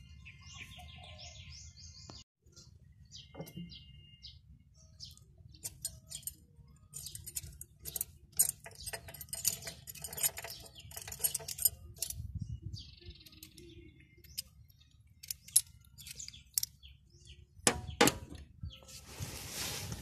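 Irregular metallic clicks and clinks of hand and tool work inside the opened crankcase of a Kubota ER100 diesel engine, with a sharp knock near the end followed by a short scraping rush. Birds chirp briefly at the start.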